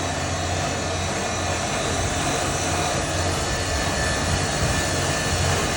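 A vacuum grain crusher running: a steady motor hum under an even rushing noise.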